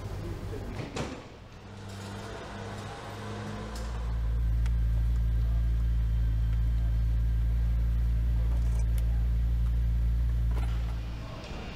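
Heavy truck engine running at a steady speed on an engine test stand, a steady low hum that swells in about four seconds in and fades out near the end.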